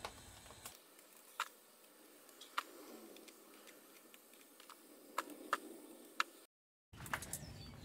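Faint scraping, with a few scattered light clicks, as a hand clears caked diatomaceous-earth sludge off the plastic top of a pool filter's grid assembly.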